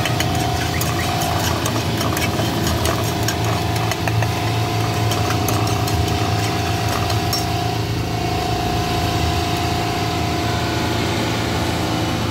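Metal spatula scraping and clicking against a frying pan as eggs are scrambled, most busily in the first few seconds. Underneath runs a steady, loud, engine-like low rumble.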